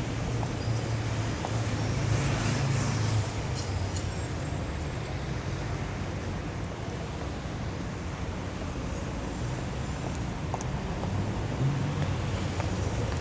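Busy city street traffic: a steady wash of passing cars and heavier vehicles, with engine hum that swells as vehicles pass and faint high squeals now and then.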